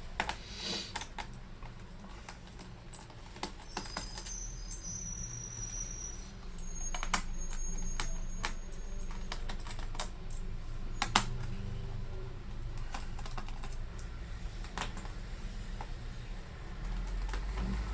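Scattered small clicks and taps of a screwdriver and handling on a laptop's plastic bottom case as its screws are taken out, over a steady low hum.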